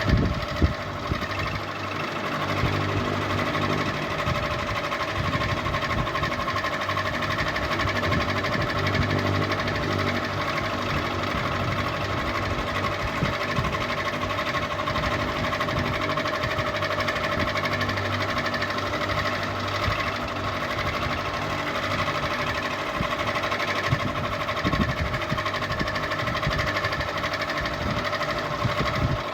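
Ceiling fan running steadily: a constant motor hum with a steady whine, broken by a few short knocks near the start and once near the end.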